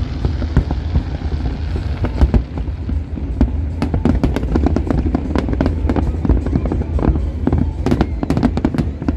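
Fireworks display: a dense crackle of many sharp small bangs over a continuous low rumble of booms, growing thicker about three and a half seconds in.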